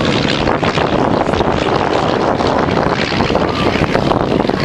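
Single-engine propeller plane flying overhead, its engine giving a steady drone.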